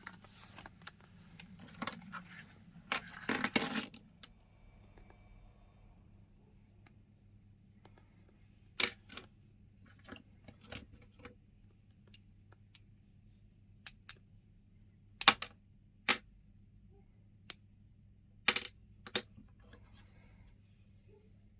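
Hard pieces of chalk clicking and clinking against the metal of a meat grinder. A busy run of crunching and scraping clicks comes in the first few seconds, then single sharp clicks at scattered intervals.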